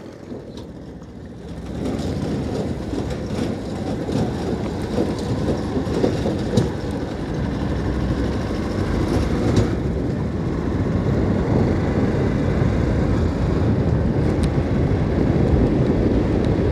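Honda Unicorn single-cylinder motorcycle riding along, its engine running under a steady low rumble of road noise. Quieter for about the first two seconds, then louder and even.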